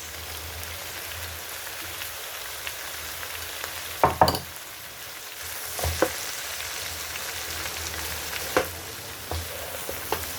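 Mixed vegetables (carrots, onions, bell pepper, spring onions) sizzling as they stir-fry in oil in a pan, with a few sharp knocks of the stirring utensil against the pan, the loudest a little past four seconds in.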